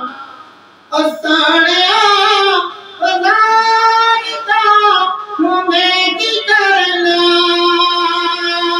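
A man singing a devotional naat solo and unaccompanied into a microphone. He sings long, high, wavering held notes, with a brief pause about a second in and another shorter one near three seconds.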